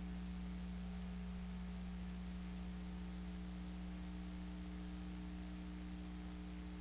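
Steady electrical mains hum over an even tape hiss, unchanging throughout; the passing freight train itself is not heard.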